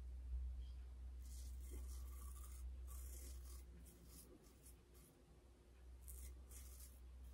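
Double-edge safety razor with an ASCO blade scraping through lathered stubble on the upper lip: faint, scratchy strokes in a quick series, a quieter gap, then a few more near the end.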